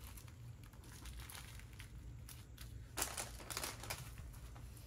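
Small resealable plastic bags of diamond painting drills crinkling and rustling as they are handled and laid out. The rustling comes in short scattered bits, loudest for about a second around three seconds in.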